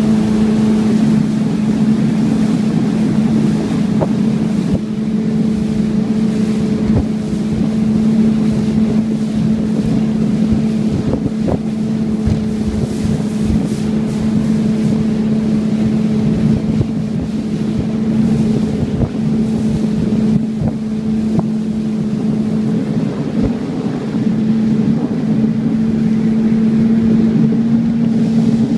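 Outboard motor of a Marlin 18 rigid inflatable boat running steadily at speed, a constant hum, with wind buffeting the microphone.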